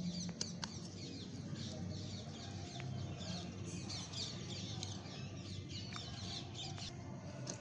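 Birds calling in the background, a dense run of short, quick chirps throughout, with a few faint clicks.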